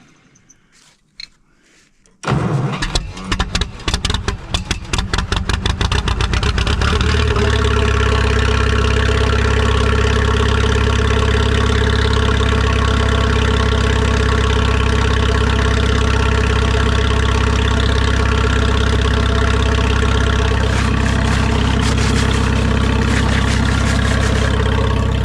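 An old gasoline tractor engine fires about two seconds in on a cold start. It runs ragged and uneven for a few seconds, then settles into a steady idle.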